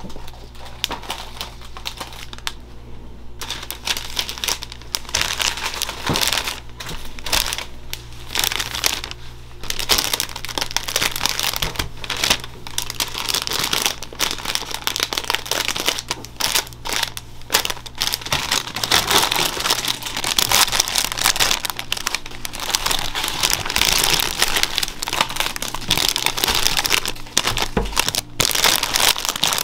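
Clear plastic bakery bags crinkling and rustling in uneven spurts as bagels are slipped into them and handled.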